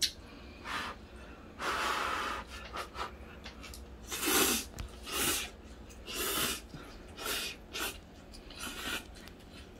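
A person slurping instant ramen noodles, a string of short, noisy slurps about a second apart, with a longer one near the start.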